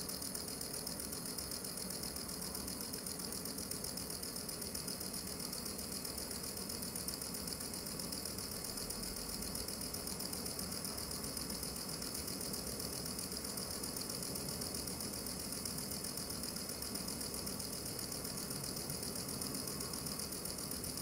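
Small electric motor and plastic gears of a USB humping-dog toy running continuously, a steady whirring buzz with a light rattle.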